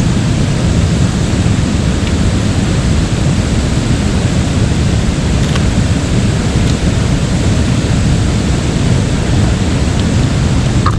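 River rapids rushing steadily: a loud, even noise with a heavy low rumble.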